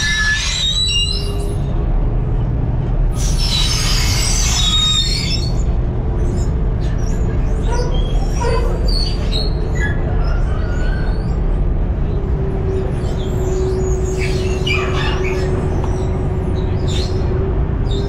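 Ferry engine running with a steady low rumble and hum, with several bursts of high, wavering squeaks and squeals over it.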